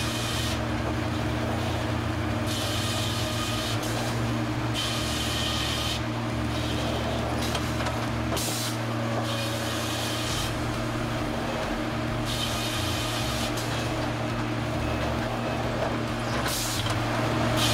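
Sawmill carriage and log-handling machinery running with a steady low hum, broken every couple of seconds by short hissing bursts.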